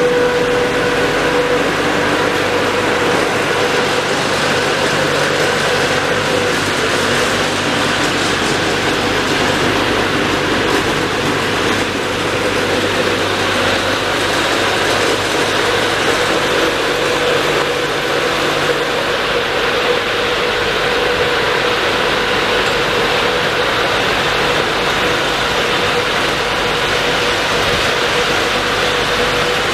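Car wash dryer's large blowers running, blasting air down over a car through a gantry with two round nozzles: a loud, steady rush of air with a constant hum.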